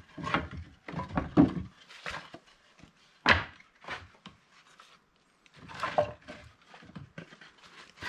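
Pieces of split firewood knocking and clattering against each other as they are picked up and set down by hand, in irregular bursts, with the sharpest knock about three seconds in.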